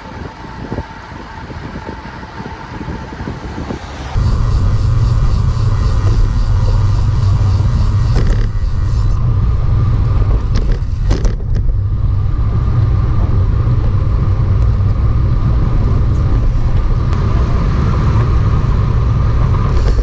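Wind rumbling on the camera's microphone while riding a bicycle, mixed with road noise. About four seconds in it jumps abruptly to a heavier, steady low rumble, with a few sharp clicks in the middle.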